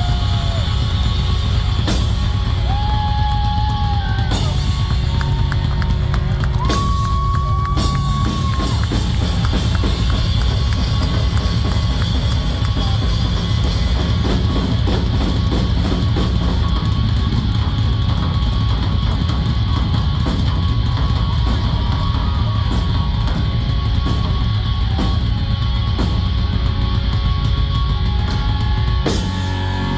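Rock band playing loudly live, with the drum kit to the fore.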